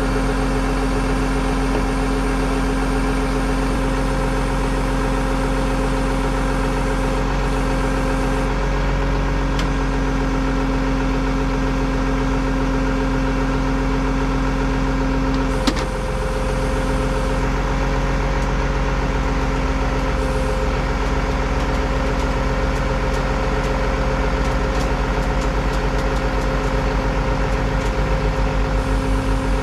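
Tow truck's engine idling steadily, with one sharp click about halfway through and a low pulsing that grows stronger near the end.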